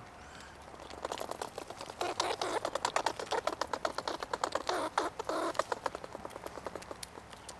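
A squirrel gnawing kernels off an ear of white corn: rapid crunching clicks, many a second. They start about a second in, are loudest in the middle and thin out near the end.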